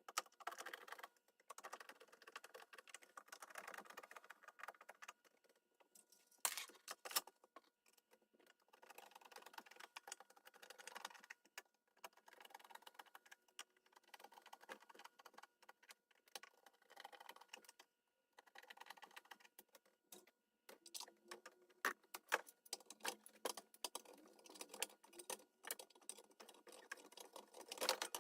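Light, irregular clicking and rattling of small hard parts being handled, in clusters with short pauses.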